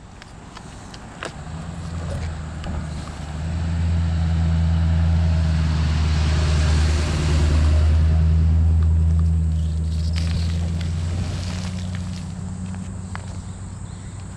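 A motor vehicle's engine passing on the road: a low steady hum that builds over a few seconds, holds, then slowly fades.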